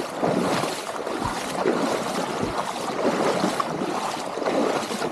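Feet wading through shin-deep floodwater in trainers, each stride a sloshing splash, repeating at a steady walking pace.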